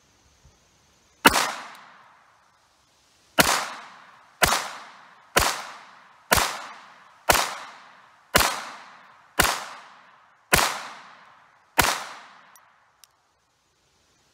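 Walther P22Q .22 LR pistol firing 37-grain Winchester Silvertip rounds: ten sharp shots, a single one first and then nine at about one a second, each trailing off in a short echo. The pistol fed and cycled every round without a malfunction.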